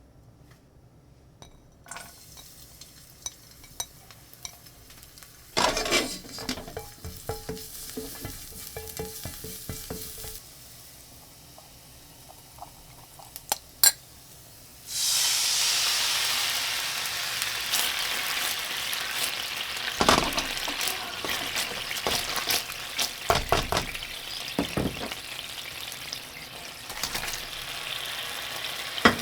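Light clinks and knocks of kitchen utensils, with a couple of sharp clicks. About halfway through, a frying pan suddenly starts sizzling loudly as food goes into hot oil, and a spatula knocks against the pan as it is stirred.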